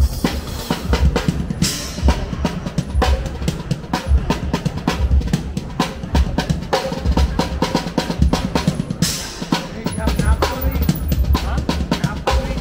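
A drum kit playing a driving beat, with bass drum thumps and snare hits.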